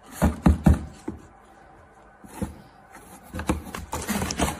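Three quick knocks on a cardboard box, then lighter taps and rustling of cardboard as a cat's paw reaches out through the box's slot.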